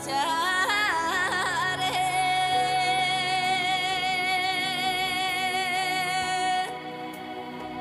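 A woman sings a Tibetan folk-style song over backing music. Her voice runs through a quavering, ornamented phrase for about two seconds, then holds one long high note for over four seconds. The note stops near the end, leaving the quieter accompaniment.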